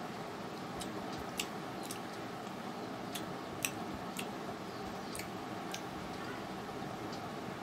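Eating sounds of rice and curry being eaten by hand: scattered sharp, irregular clicks over a steady background hiss.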